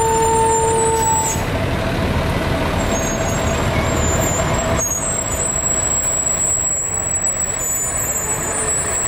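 Fire trucks driving slowly past with their diesel engines running. A short steady tone sounds in the first second.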